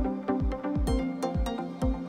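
Background electronic music with a steady beat.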